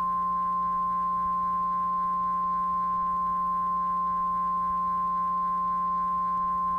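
NOAA Weather Radio warning alarm tone: a single steady 1050 Hz tone held unbroken, signalling that a warning broadcast is about to follow. A low steady hum runs beneath it.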